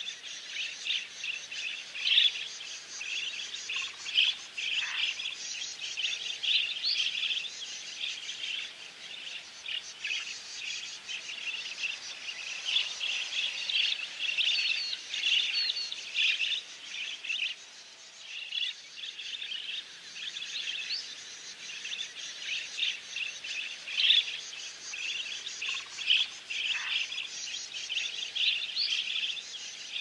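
Dense chorus of wild birds: many short, high chirps and calls overlapping, with occasional quick upward-sweeping notes, going on without a break.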